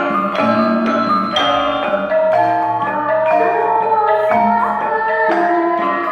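Javanese gamelan ensemble playing a lancaran. Bonang kettle gongs and other bronze instruments are struck in a steady, interlocking rhythm, with ringing notes that overlap, and a kendang drum keeps the time.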